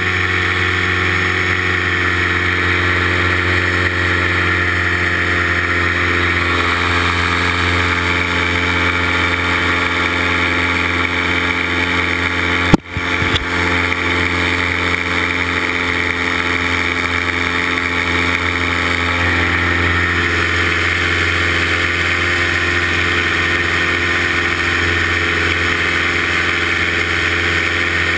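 Paramotor engine and propeller running steadily at cruise power in flight, a constant engine drone. Near the middle there is one sudden sharp click with a brief dropout before the steady drone resumes.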